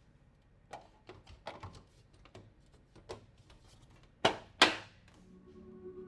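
Scattered light clicks and taps of PC parts being handled and fitted together, with two louder knocks about four seconds in. Background music comes in near the end.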